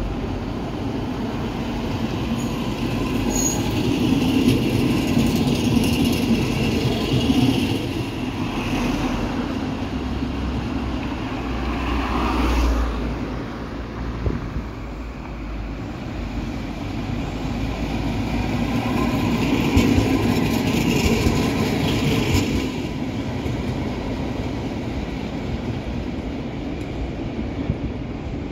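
City street traffic with a tram running on its rails, a steady mix of wheel and road noise that swells twice as vehicles pass close.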